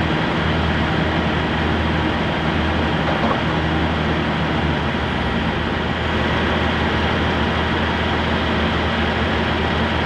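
Volvo truck's diesel engine running steadily, a loud even drone with no change in pitch.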